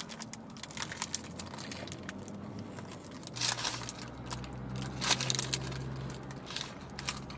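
Paper sandwich wrapper crinkling as a bite is taken from a large crusty sandwich, then chewing, with scattered small crunches. A steady low hum comes in about halfway through and stops near the end.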